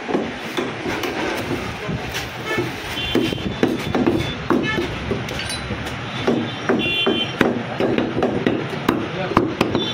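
A butcher's cleaver chopping goat meat (mutton) on a wooden log chopping block, in quick, irregular strokes, with the hum of customers' voices behind.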